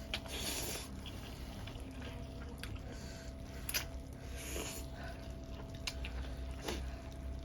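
Close-up eating sounds: chewing ramen noodles, with scattered small clicks and a few short hissy bursts.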